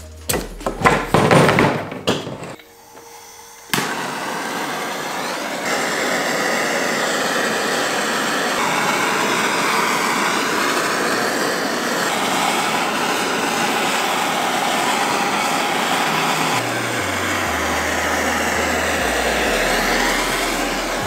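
Handheld gas torch burning with a steady hiss, coming on suddenly about four seconds in. Before that, a couple of seconds of uneven clattering handling noise.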